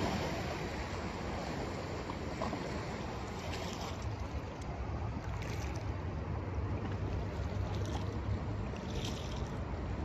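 Black Sea waves washing steadily, with wind rumbling on the microphone and a few faint ticks.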